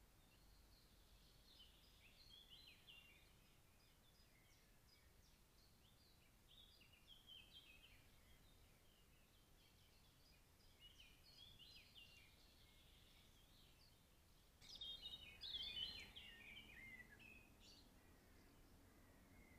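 Faint songbirds singing, many short chirped phrases one after another, over a low hiss. About fifteen seconds in the song becomes louder and busier.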